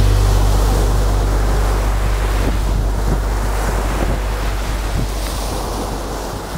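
Ocean surf washing onto a sandy beach: a continuous rush of breaking waves over a steady low hum, slowly fading out.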